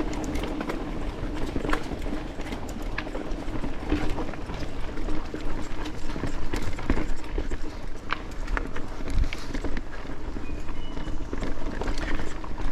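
Mountain bike riding fast down a dirt jump trail: tyres rolling over the dirt, with frequent sharp clicks and clacks from the chain and bike over bumps. Wind rumbles on the microphone throughout.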